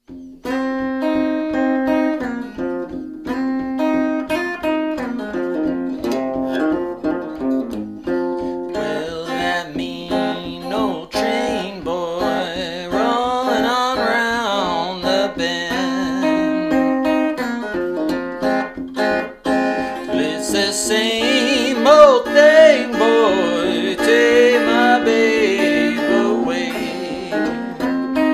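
Acoustic blues guitar playing an instrumental intro over a steady, repeated low drone note, with bending melody notes joining about nine seconds in.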